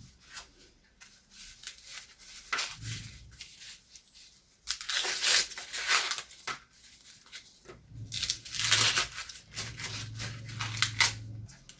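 Dry, crackly tearing and crumpling by hand, in two louder bouts with quieter rustling and clicks between.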